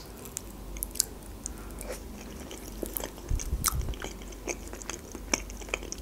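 Close-miked mouth sounds of someone eating baked mussels: chewing, with scattered sharp little clicks and a short run of low thumps about halfway through.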